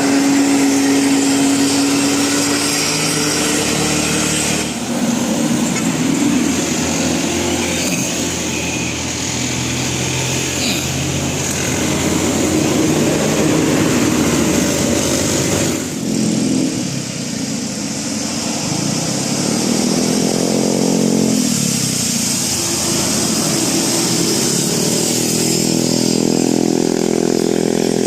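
Road vehicle engines running loudly, with one engine note rising and falling like revving about two-thirds of the way through.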